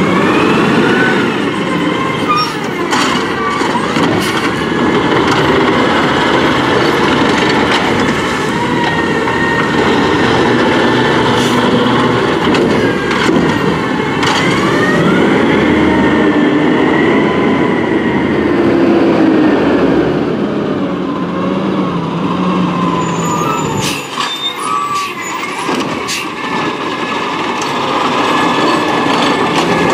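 Natural-gas Peterbilt 320 garbage truck with a Pendpac side-loader body running as it drives and pulls up, with squeals and whines gliding up and down in pitch over the engine noise.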